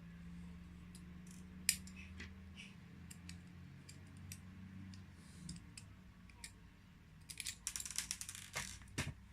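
Small metal knife parts, such as the washers from a disassembled folding knife, handled and set down on a table: scattered light clicks and taps, with a quick run of clicks near the end.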